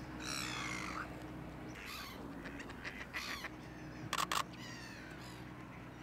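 A bird calling three times with harsh, falling calls, then a DSLR shutter (Canon 1DX) firing a quick burst of about three clicks about four seconds in.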